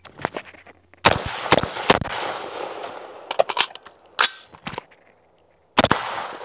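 Gunshots in a timed shooting drill: about six sharp shots at uneven spacing, each trailing off in a ringing echo, with a pause of about a second before another shot near the end.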